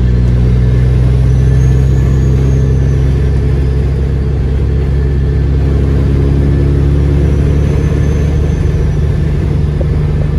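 Kenworth W900L semi truck's Caterpillar diesel engine droning steadily from inside the cab while cruising on the highway, with an even haze of road and wind noise over it.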